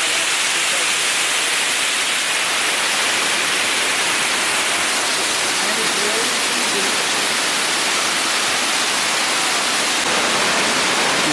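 Steady rush of falling water from a large waterfall: a loud, even hiss with little low rumble.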